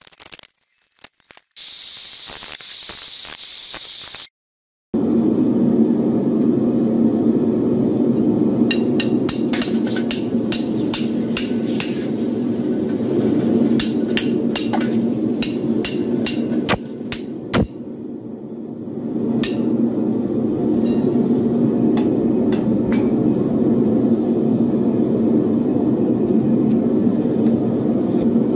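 Propane Devil-Forge furnace burner running with a steady rushing noise, with sharp metallic knocks and clinks over it as a steel ingot mould is tapped to free cast copper ingots into a pot of water. A loud hiss in the first few seconds stops abruptly.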